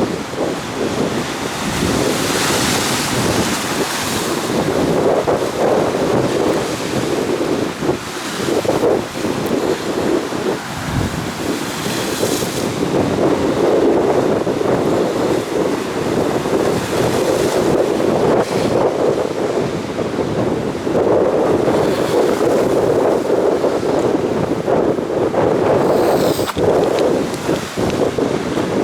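Rough, foaming Black Sea surf breaking and washing in surges every few seconds, with wind buffeting the microphone.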